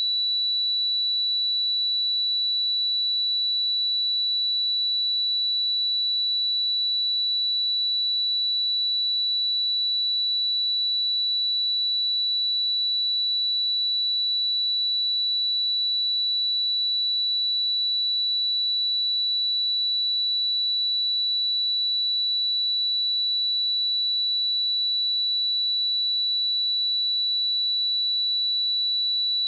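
A pure 3946 Hz sine test tone, a single high-pitched steady whistle-like tone held at constant level without a break.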